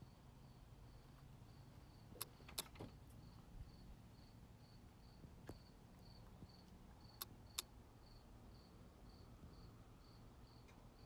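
Seek Thermal Compact XR thermal camera clicking: a few sharp clicks, in quick pairs about two seconds in and again past seven seconds, with a single one between, the noise it always makes as its internal shutter recalibrates. Crickets chirp faintly and evenly underneath, a little over two pulses a second.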